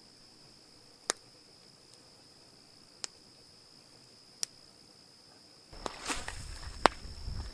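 Steady high-pitched drone of crickets or other night insects, broken by three lone sharp snaps. About two-thirds of the way through, louder knocking and clattering with a low rumble begins.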